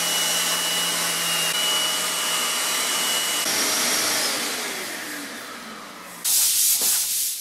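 DeWalt 125 mm random orbit sander with a shop vacuum drawing dust through its hose, running steadily on a stripped wooden board. About three and a half seconds in both are switched off and spin down, the sound fading with a falling pitch. Near the end comes a brief, louder rushing noise.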